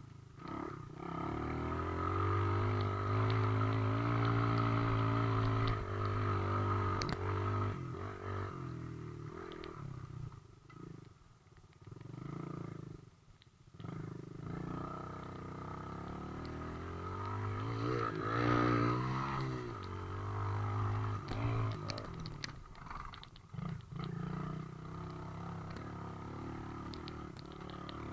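Dirt bike engines running past, loud twice, once early on the way in and again about two-thirds through, where one revs up and down.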